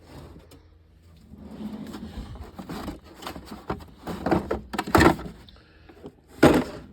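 Metal hand tools clunking and knocking as they are handled and shifted in a toolbox drawer, several separate knocks with the loudest about five seconds in and near the end.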